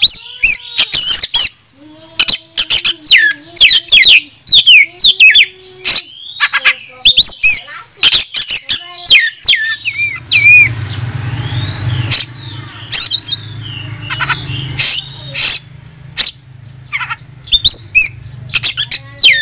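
Oriental magpie-robin (kacer) in full song: a rapid run of varied, gliding whistles mixed with sharp clicking and harsh chattering notes, the challenge song that calls out a rival male. A low steady hum joins in the background from about halfway.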